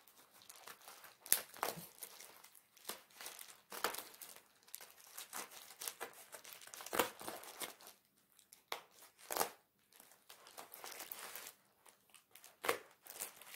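Scissors cutting through packing tape and plastic wrapping over bubble wrap, the plastic crinkling and crackling in irregular bursts of snips.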